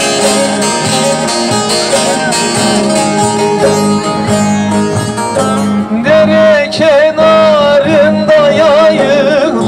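Live Turkish folk music: a long-necked plucked string instrument plays a fast instrumental passage. About six seconds in, a man's voice joins over it, singing long held notes that waver up and down.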